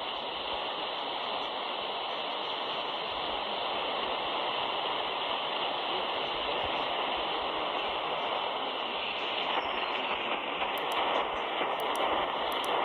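AM radio static: a steady hiss of receiver noise, with a few faint clicks near the end.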